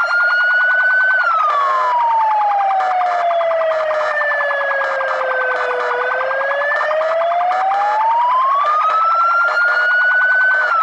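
UK fire engine siren sounding a slow wail. The pitch peaks about a second in, glides down for about five seconds, then climbs back up over the next five.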